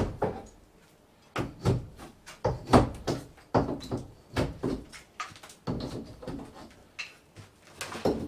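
Irregular knocks and short scrapes of hand demolition on a bathroom wall, tools striking and prying at plaster and tile to cut back a clean edge.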